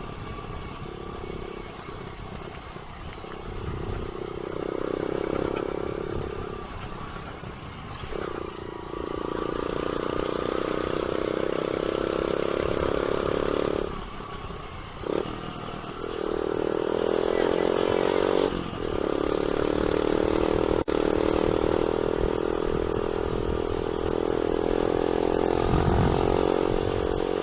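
Motorcycle engine running while riding, with a steady note that drops away briefly several times and comes back, over wind noise.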